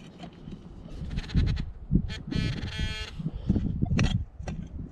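Hoe blade chopping and scraping into dry dirt, a series of dull thuds. A short buzzy tone about two and a half seconds in lasts under a second.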